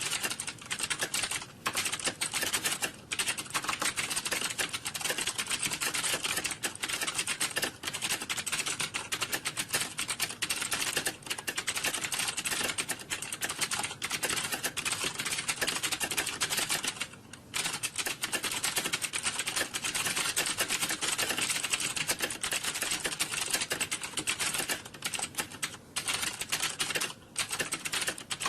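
Computer keyboard typing: a fast, continuous clatter of keystrokes, with a short pause about 17 seconds in.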